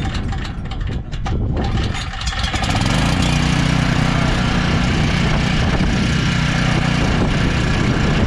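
John Deere portable generator's engine starting: about two and a half seconds of uneven cranking and sputtering, then it catches about three seconds in and runs steadily.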